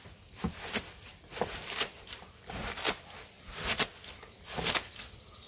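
Hedge shears snipping through a pile of stinging nettles, a crisp cut of blades and stems about twice a second, with rustling of the leaves between cuts.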